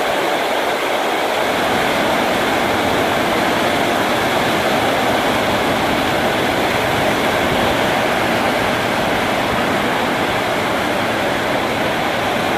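Heavy rain pouring down, a steady, even rushing noise throughout.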